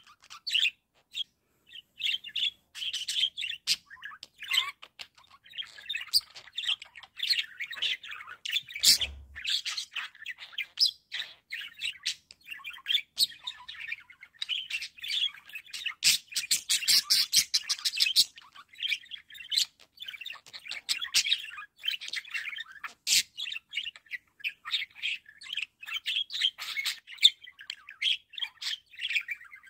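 Pet budgerigars chattering and warbling: a continuous run of rapid chirps, squeaks and clicks, with a denser, louder stretch of clicking about two-thirds of the way through.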